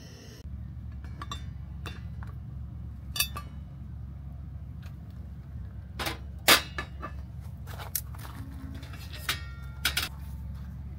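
Cast-iron lid of a small oval Dutch oven lifted off and set down, with sharp metal clanks and knocks on the camp cooking table, the loudest about six and a half seconds in. A steady low rumble lies underneath.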